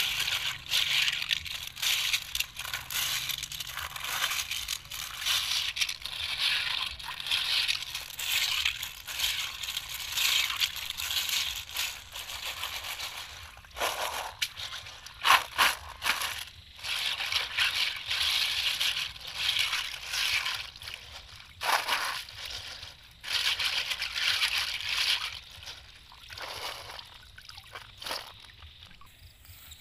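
Blood clams being washed in a woven basket dipped in water: water sloshing and the shells rattling and grinding against each other in repeated rubbing and swishing strokes, with a few sharper clicks of shell on shell about halfway through.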